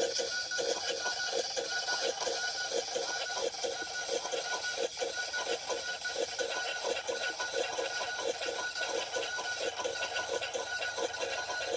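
Electronic granular-synthesis texture generated in Max/MSP: a dense, rapid stream of short chopped sound fragments with a thin steady high tone running through it.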